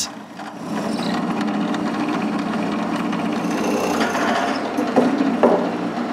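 Drill press motor running steadily while a twist bit bores into a laminated plywood block. The cutting gets louder and rougher about four seconds in.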